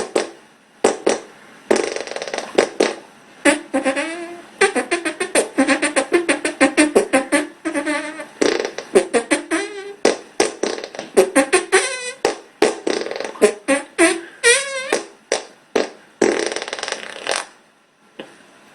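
A string of farts played back to back: dozens of short blasts in quick succession, some drawn out with a wobbling, buzzy pitch, with brief lulls about four seconds in and again near the end.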